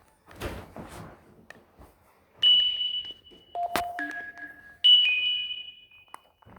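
Nokia X3-00 mobile phone playing short electronic chime tones: a high ping, a lower note and a middle note with a sharp click between them, then a high two-note ping that fades away. A brief soft noise comes just before the first ping.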